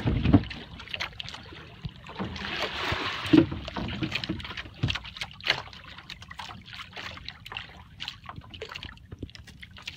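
Water lapping and sloshing against the hull of an outrigger boat, with scattered small knocks and clicks from handling in the boat and a louder knock at the start.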